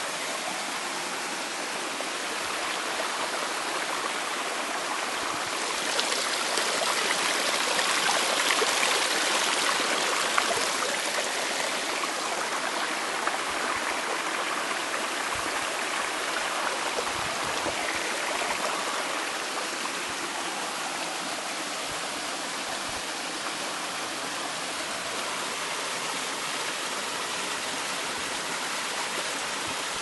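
Mountain stream rushing and splashing over rocks and a small waterfall, a steady flow of water that swells louder for a few seconds about a fifth of the way in.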